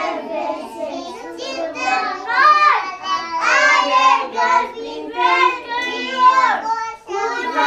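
A group of young children singing a song together in unison, with notes held and pitches rising and falling.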